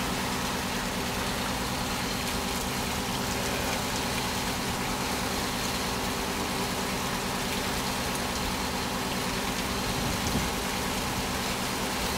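Fishing boat's engine running steadily at a constant pitch, heard from inside the cabin, with a steady hiss over it.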